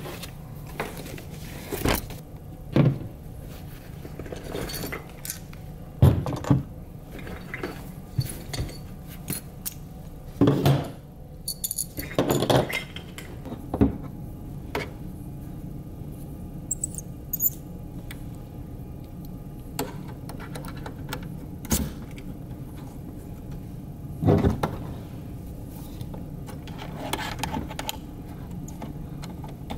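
Irregular clicks, knocks and light metallic clatter of camera rig parts being handled and fitted onto a Sony FS7 camera body, with a few louder knocks scattered through.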